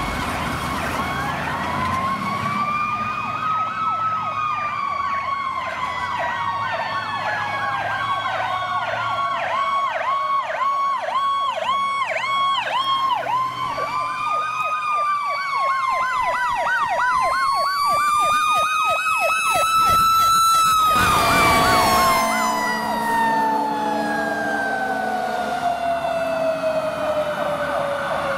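Fire apparatus sirens: a slow rising and falling wail overlaid with a fast repeating yelp, loudest just past the middle, then the wail sliding down in one long falling tone near the end.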